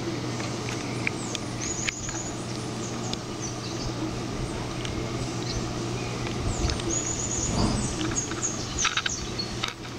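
Submerged aquarium filter running in a turtle tank: a steady hum under a hiss of moving water. Short high chirps come now and then, and a few sharp clicks sound near the end.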